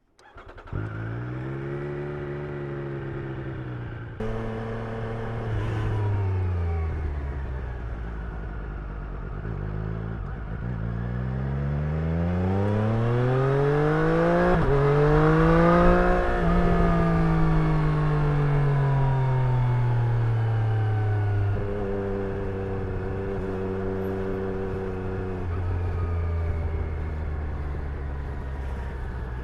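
Triumph Street Triple's inline three-cylinder engine and exhaust while riding, the note rising and falling with throttle and gear changes. A long climb in pitch peaks about sixteen seconds in, then eases off and settles to steadier revs.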